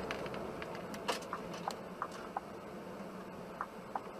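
Steady road and engine noise from inside a moving vehicle, with a scattered series of small sharp clicks.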